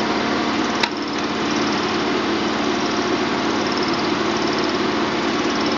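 Compressed air at about 13 bar hissing steadily from a small leak at the cable-blowing head and its air hose, over a steady low hum, with one short click about a second in.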